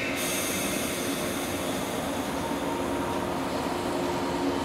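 JR West Series 117 electric multiple unit running slowly into a station platform, a steady rolling and motor noise with a faint hiss of air.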